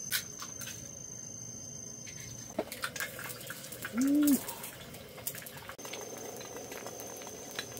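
Eggs cracked onto a hot griddle over a camping gas burner: a few sharp shell clicks, then sizzling as they start to fry. About four seconds in comes one short hooting note that rises and falls, and a cricket chirps steadily in the first and last parts.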